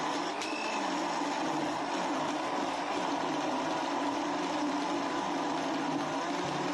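Countertop blender motor running steadily, blending a frothy pink fruit drink in its jar.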